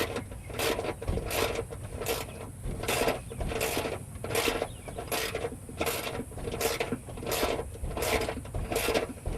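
Hand ratchet wrench clicking in short back-and-forth strokes, one burst of clicks about every 0.7 seconds, as long bolts are run in only about a quarter turn per stroke in a cramped space.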